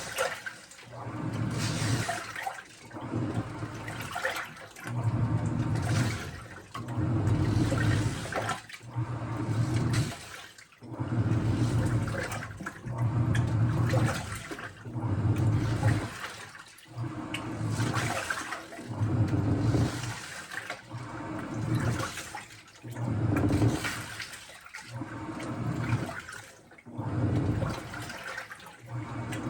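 Washing machine drum turning with water swishing inside, swelling and fading in regular surges about every two seconds.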